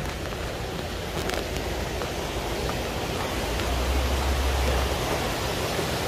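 Steady rushing noise, with a stronger low rumble for about a second near the middle.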